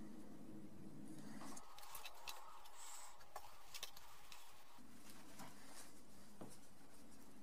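Light handling sounds of a paper template and a piece of leather being moved on a workbench: scattered soft taps, clicks and rustles over a steady low hum.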